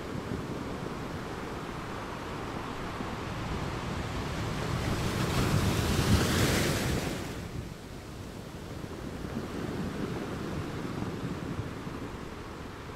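Wind rushing over the microphone above open water, a steady hiss that swells louder for about two seconds midway and then drops back.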